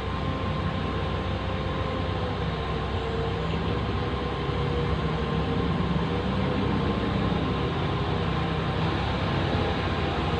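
Heavy diesel engine of a large mining excavator running steadily, a little louder about halfway through.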